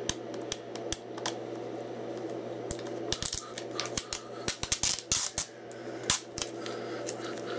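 A plastic Blu-ray case and its cardboard slip cover being handled: a run of irregular sharp clicks, snaps and light crinkles, thickest in the middle of the stretch.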